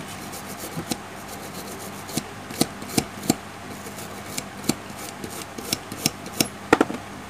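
Toothbrush scrubbing a Huawei Y3 2017 phone's circuit board wet with cleaning liquid: irregular scratchy bristle strokes, a few sharper than the rest, the sharpest near the end.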